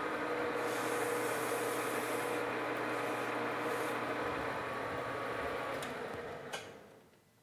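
Metal lathe running with a steady hum from its motor and drive, then shut off about six seconds in: a sharp click sounds and the hum winds down to near quiet.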